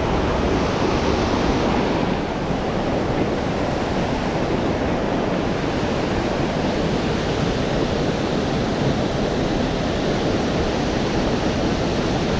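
Rushing water of a fast-flowing mountain stream, a steady, even noise with a slight drop in level about two seconds in.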